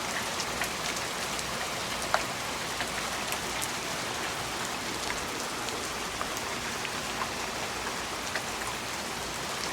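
Steady rain falling in big raindrops: an even hiss with scattered individual drop hits, one sharper hit about two seconds in.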